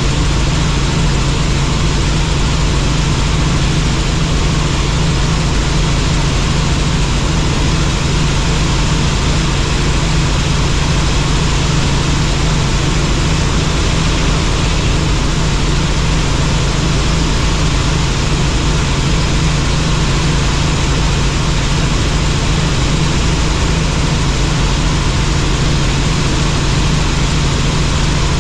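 Helicopter in flight: loud, steady rotor and engine noise with a strong low drone.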